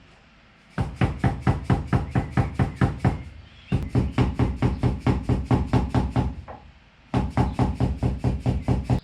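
Rapid slapping and knocking on a Toyota FJ40's new front windscreen to seat the glass into its rubber seal, about six knocks a second. The knocks come in three runs of two to three seconds each, with short pauses between.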